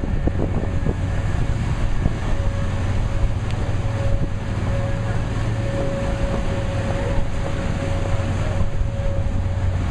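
Low, steady engine hum of a river tour boat passing close by, mixed with wind rumbling on the microphone. A faint steady high tone joins about two seconds in.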